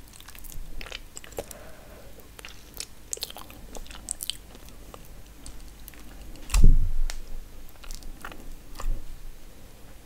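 Fingers handling sauce-coated seafood-boil food in a glass bowl: many small sticky, wet clicks and squelches, with one heavier thud about six and a half seconds in.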